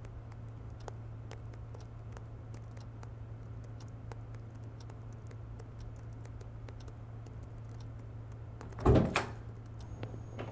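Typing on a laptop keyboard: a stream of soft, uneven clicks over a steady low hum. About nine seconds in, a door opens with a loud thunk.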